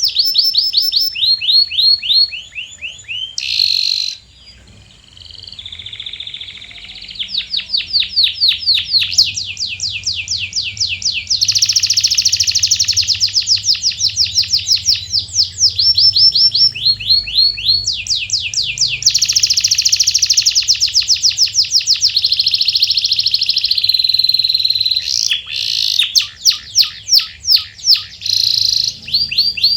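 Domestic canary singing: long rolling trills of rapid repeated notes, changing speed and pitch from phrase to phrase, with a brief lull about four seconds in.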